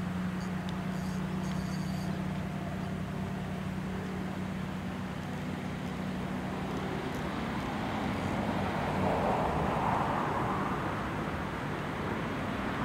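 Road traffic: a steady low engine hum for the first half, then a vehicle passing, loudest about nine to ten seconds in.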